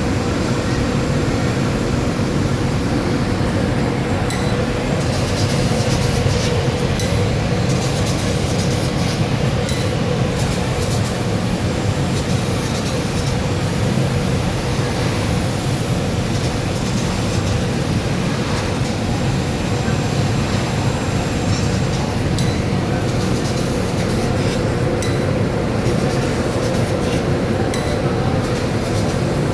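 CNC fiber laser cutting machine running while it cuts 3 mm sheet: a loud, steady rushing noise under a constant hum, with a few faint clicks.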